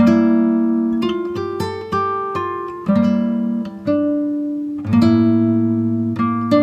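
Background music on a plucked acoustic guitar: chords picked and left to ring, a new one about every second.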